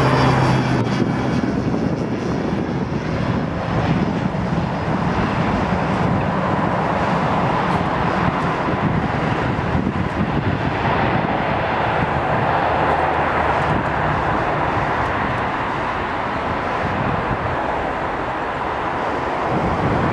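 Light twin-engine propeller aircraft on the runway, its piston engines giving a steady drone.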